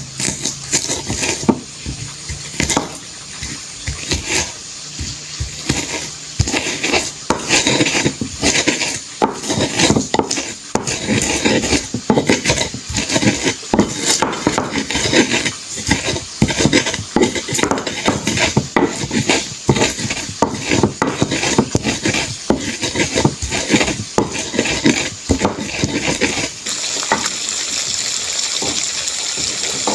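Chilies being ground with a pestle in a mortar (ulekan and cobek), a fast run of irregular knocks and grinding scrapes. Near the end the strokes stop and a steady hiss is left.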